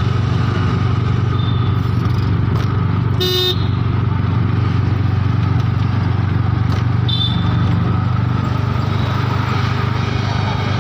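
Moving vehicle's engine and road noise heard from inside the cabin as a steady low drone, with a short horn honk about three seconds in.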